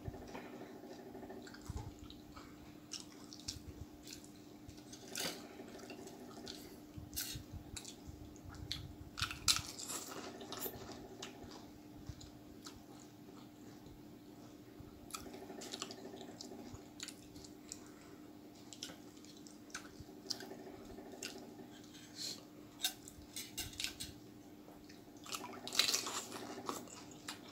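Close-up crunching and chewing of pani puri, the crisp fried shells breaking in the mouth with wet mouth noises, the loudest crunches about nine seconds in and near the end. A steady low hum sits underneath.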